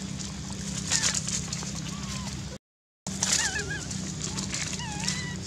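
Short, high warbling calls, each wavering up and down in pitch, over the crackle of dry leaves and a steady low hum. The sound drops out for about half a second a little after halfway.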